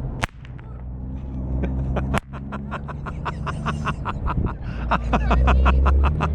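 Consumer fireworks going off: two sharp bangs in the first couple of seconds, then a rapid run of crackling pops, several a second, over a steady low rumble.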